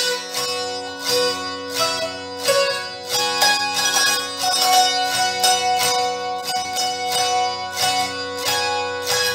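Hungarian citera (fretted folk zither) strummed with a plectrum: a folk melody stopped on the melody strings over a steady drone from the open strings, with regular, evenly paced strums.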